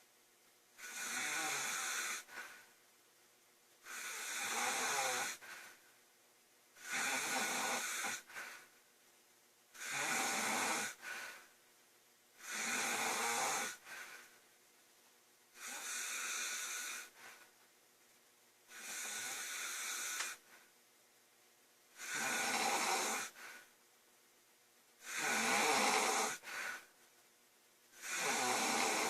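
Girl snoring loudly and rhythmically: about ten long snores, one every three seconds, with quieter breathing between them.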